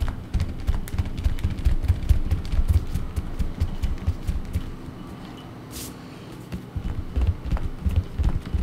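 Kneadable eraser rolled and rubbed back and forth under a hand across drawing paper on a board, giving a run of low, irregular thumps and rubbing. It eases off about halfway through and picks up again near the end.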